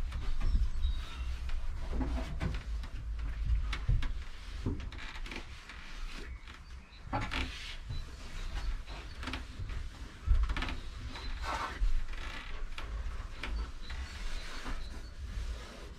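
Irregular rubbing, knocking and rustling from handwork on a van's bare sheet-metal panels while self-adhesive sound-deadening mat is fitted, over a low rumble.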